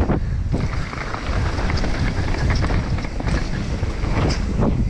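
Mountain bike descending a rough dirt trail at speed: tyres and bike rattling, with scattered sharp knocks from roots and rocks, under steady wind on the microphone.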